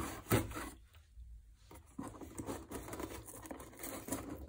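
A blunt knife slitting the packing tape along the seam of a cardboard shipping box, a scraping, tearing sound. There are a few knocks at the start, a short pause, then steady cutting from about two seconds in.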